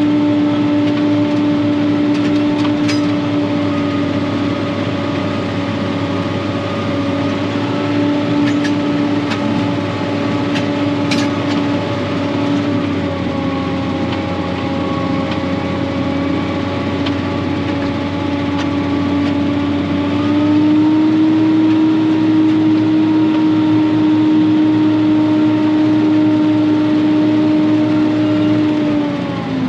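John Deere tractor running steadily under way, heard from inside its cab, with a steady engine hum whose pitch steps up slightly about two-thirds of the way through. A few faint clicks over it.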